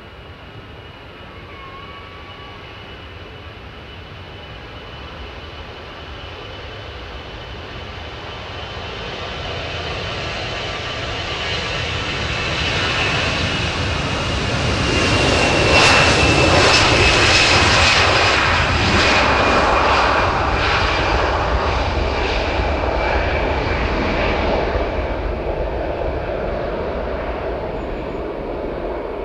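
Airbus A321 jet engines at takeoff power during the takeoff roll. The sound builds steadily, peaks as the aircraft passes about halfway through with a high whine that drops in pitch, then fades as it moves away down the runway.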